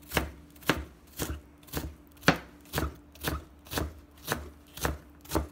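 Chef's knife dicing red onion into small squares on a plastic cutting board: steady chopping, about two knife strokes a second against the board.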